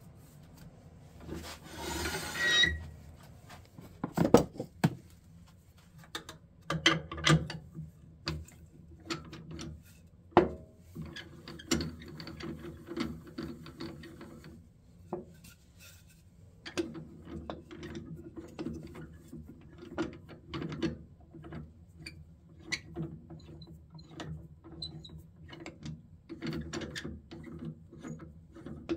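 A cherry burl blank being handled on a stopped wood lathe. A hand rubs over the rough wood about two seconds in, then come scattered knocks and clicks of wood against the four-jaw scroll chuck and tool rest, and near the end the small clicking of the chuck's gear mechanism being worked with its key.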